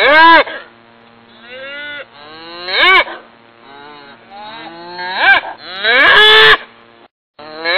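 A bull mooing again and again, loud calls that swell and rise in pitch a couple of seconds apart, with fainter lowing between them. The longest call comes near the end.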